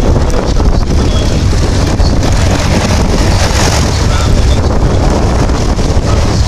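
The Lockheed 12A Electra Junior's twin Pratt & Whitney R-985 Wasp Junior radial engines drone steadily overhead in flight, with wind buffeting the microphone.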